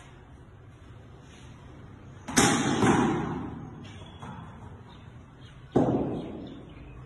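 A cricket bat striking a ball: two sharp knocks about half a second apart a little over two seconds in, and another near six seconds. Each rings on in a long echo off the bare walls and hard floor of an empty room.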